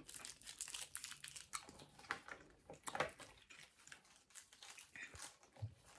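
Faint, close mouth sounds of chewing a piece of extreme sour candy: a run of small wet clicks and crunches, dense for about three seconds, then sparser.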